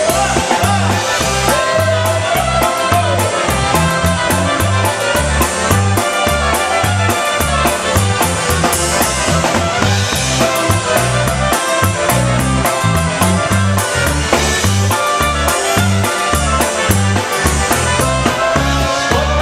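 Live polka band playing an instrumental passage: concertina, electric bass and drum kit, with the bass and drums keeping a steady, bouncing beat.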